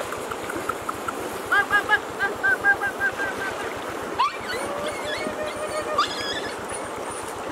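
Water swishing and splashing around legs wading through a shallow river, with birds calling over it: a run of short repeated chirps in the first half, then a rising whistle and a longer held note.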